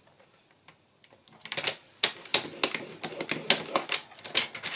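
Paper trimmer's scoring blade head being run along its rail over cardstock to score a fold line: a quick, uneven series of clicks and rasps, starting about a second and a half in.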